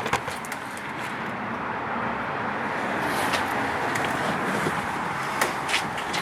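Steady noise of a passing road vehicle that swells over the first few seconds and holds, with scattered light metallic clicks of hinge bolts and tools being handled.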